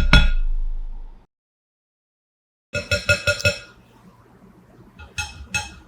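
Keychron mechanical keyboard being typed on in quick bursts of clacking keystrokes, split by a short silence. This is a typing sound test of the keyboard with and without the thin plastic sheet lining the inside of its case.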